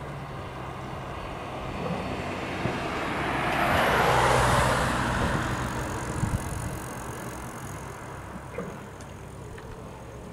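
A vehicle passing by: its noise swells to a peak about four seconds in and then fades, over a steady low hum.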